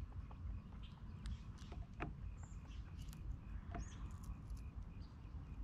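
Small clicks and ticks of a fishing hook being worked free of a small largemouth bass's mouth by hand, over a steady low rumble, with a few faint bird chirps.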